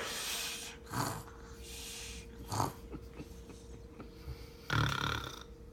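A sleeping pet snoring and snorting in deep sleep: about four irregular noisy breaths, the last one longest and loudest.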